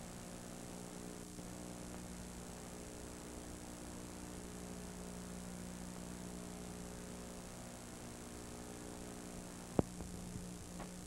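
Steady electrical mains hum with tape hiss, the noise floor of an old home-movie transfer with no sound of its own; a single sharp click about ten seconds in, where the picture breaks up into static, followed by a few faint ticks.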